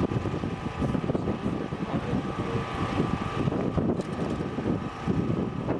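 Moving train: a steady, uneven rumble of running noise, with a faint steady whine above it.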